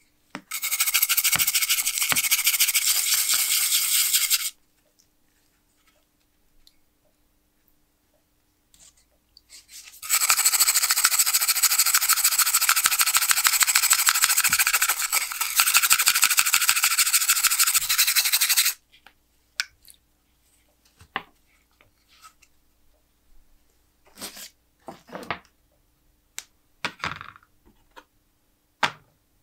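Rusty metal pencil sharpener parts being scrubbed in a tub of rust remover: a dense, fast scratching in two long stretches, the second about twice as long. Scattered light knocks and clicks follow as the parts and tub are handled.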